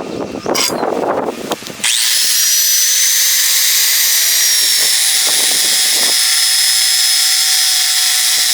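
Handheld electric power tool starting up about two seconds in: its motor whine rises quickly to a steady high pitch and keeps running. Before it starts there is irregular rustling and handling noise.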